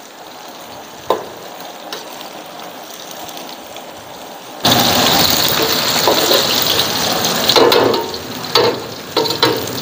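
Egg-and-cornflour-coated rice noodles deep-frying in a wok of hot oil, a steady sizzle that jumps much louder about four and a half seconds in. A few knocks and scrapes of the metal spatula against the wok come near the end. The noodles are being fried until crisp.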